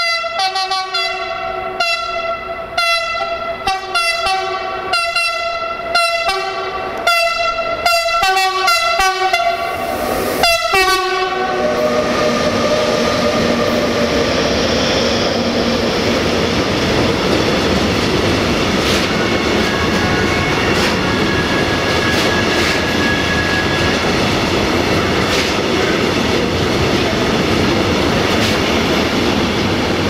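Siemens Taurus 1116 069-6 sounds its horn in a rapid string of short blasts, coming faster toward the end, for about ten seconds. The locomotives and container freight wagons then pass at speed with a loud, steady rumble of wheels on rail and clickety-clack.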